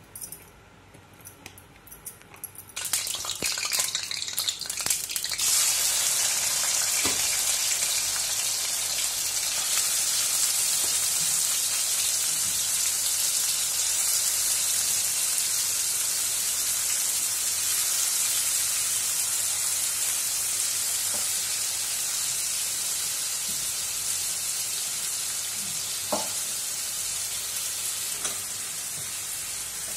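Turmeric-and-salt-coated small prawns frying in hot oil in an iron kadai: a loud, steady sizzle starts about three seconds in, when they go into the oil, and eases slightly toward the end. A few short clinks of the steel spatula against the pan as they are stirred.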